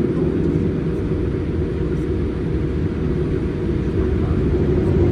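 Jet airliner cabin noise: a steady low rumble of engines and airflow with a faint, constant hum above it.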